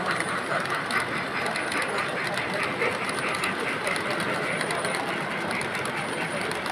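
Model freight train rolling past on the layout track: its cars' small metal wheels run over the rails in a quick, uneven string of light clicks over a steady background hiss.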